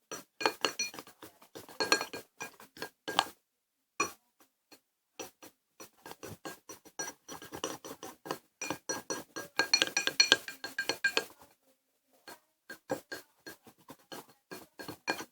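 Spoon clinking rapidly and unevenly against a bowl while stirring thick slime, each strike ringing briefly, with short pauses in the stirring.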